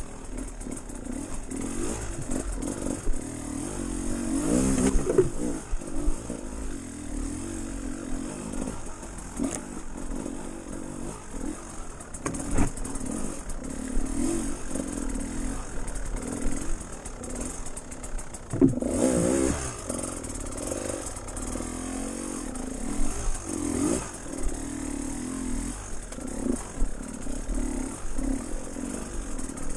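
Dirt bike engine running on a rough trail, the revs rising in surges about four to five seconds in and again near nineteen seconds, with rattling and clatter from the bike over the ground.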